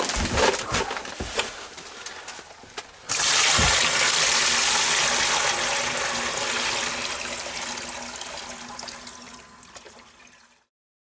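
A few knocks and clunks, then about three seconds in water starts gushing from a hauled water container into a storage barrel, loud at first and slowly dying down as the container drains.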